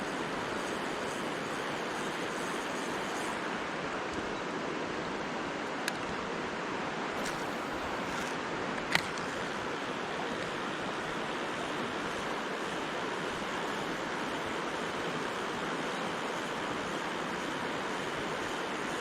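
Mountain stream water rushing steadily, with two short sharp clicks about six and nine seconds in, the second louder.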